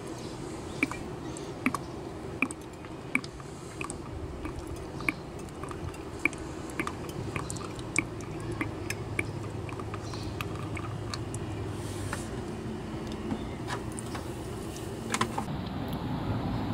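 Hand siphon pump drawing power steering fluid up out of the reservoir: wet, irregular clicks and slurps as fluid and air are pulled through the tube, about one or two a second.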